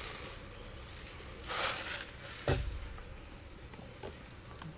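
A short rustling swell followed, about half a second later, by a single sharp knock, the loudest sound; otherwise quiet room tone.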